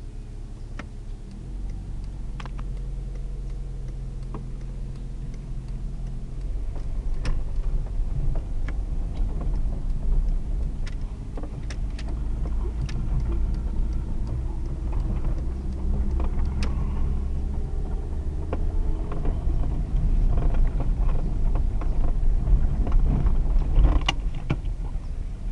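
Car interior while driving: the engine hum and road noise are steady, and the engine note shifts in pitch a few times. Scattered sharp clicks and rattles come through over the top.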